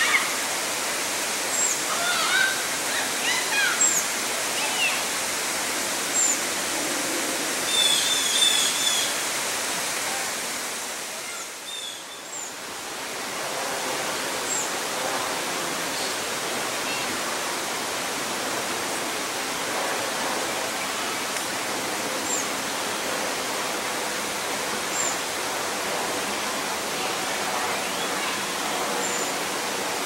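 Steady rush of flowing water, with short high bird chirps over it in the first ten seconds, including a quick run of repeated high notes about eight seconds in. The rush dips briefly near the middle, then carries on steadily with only faint, scattered chirps.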